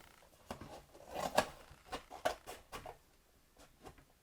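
Scattered light clicks and taps from cardboard rolls and tools being handled on a work surface, busier in the first three seconds and tailing off near the end.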